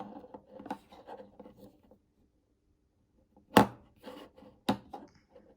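Light clicks and rubs of small metal multi-tools being handled, then two sharp knocks, about three and a half and four and a half seconds in, as a tool is set down or tapped against another.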